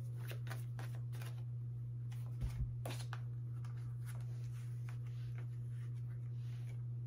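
Tarot cards being shuffled by hand: quick papery riffling clicks through the first three seconds, two soft knocks about two and a half seconds in, then fainter card sounds. A steady low hum runs underneath.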